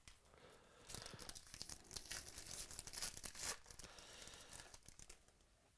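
Red foil wrapper of a football trading-card pack being torn open and crumpled by hand, a run of crinkling and tearing that starts about a second in, peaks twice and fades out near the end.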